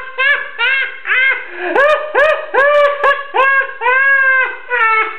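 A man's loud, uncontrolled falsetto cries in a quick string of about a dozen rising-and-falling yelps, with one longer drawn-out cry about four seconds in.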